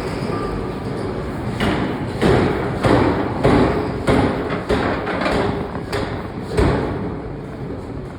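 Forging hammer blows on hot steel: about nine heavy strikes, a little under two a second, which then stop, over a steady factory machine hum.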